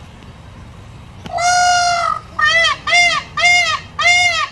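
Indian peafowl (peacock) calling: one long call about a second in, then four shorter calls in quick succession, each rising then falling in pitch.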